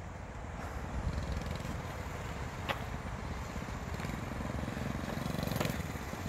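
Mega Moto 105cc mini bike's small single-cylinder four-stroke engine running at a distance, faint and steady, growing a little louder about five seconds in as the bike comes closer. A single sharp tick about two and a half seconds in.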